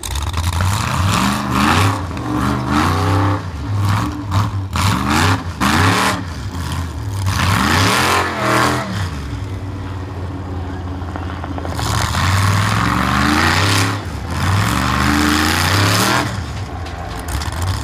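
Off-road race buggy's engine revving hard again and again as it claws up a rocky climb, its pitch rising and falling with each burst of throttle.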